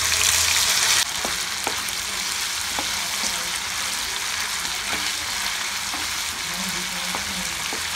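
Pressure-cooked mutton pieces frying in hot oil in a frying pan: a louder sizzle for the first second, then steady sizzling, with light knocks of the spatula as the meat is turned.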